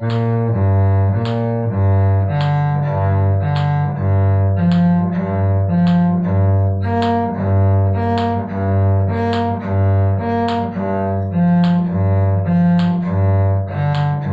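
Cello bowing a B-flat major arpeggio in even eighth notes, with the open G string sounded between each arpeggio note. This is a string-crossing bowing study, with the bow rocking between two adjacent strings.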